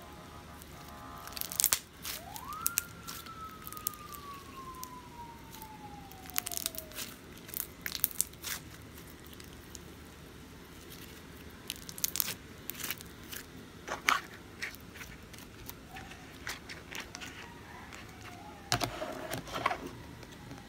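Tan floam slime with foam beads being stretched and squeezed by hand, giving irregular sticky clicks, pops and crunches. Near the end there is a louder cluster of clicks and knocks as plastic slime tubs are handled.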